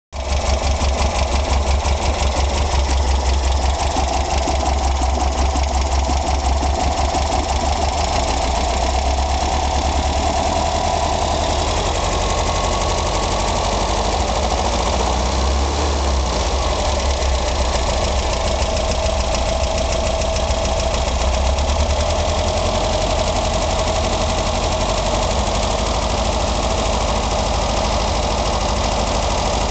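Volkswagen engine running steadily with a persistent rapid knocking noise that remains even after a fresh valve adjustment.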